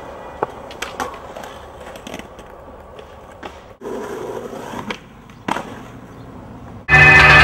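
Skateboard wheels rolling on pavement, with several sharp clacks of the board spread through the clip. Loud music starts abruptly near the end.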